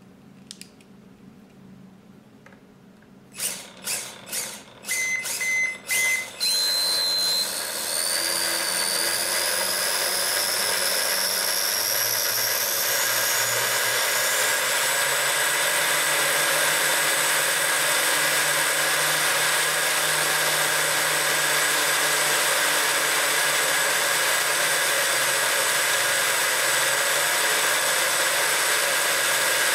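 Kyosho Mini-Z F1's PN 50T electric motor, fitted with an SI4562DY MOSFET upgrade, running its wheels on a speed checker's rollers. A few short throttle bursts and brief beeps come first. Then it runs flat out with a steady high whine that climbs in pitch for several seconds as the car comes up to top speed, then holds.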